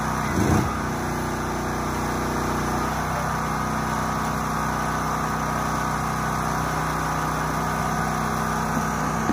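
Small engine running at a steady speed, powering the soft wash spray pump. A brief louder noise comes about half a second in.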